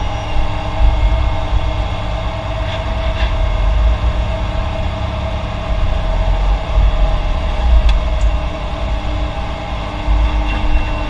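Heavy diesel earthmoving machinery running: a steady low engine rumble with a steady whine over it, and a few faint knocks.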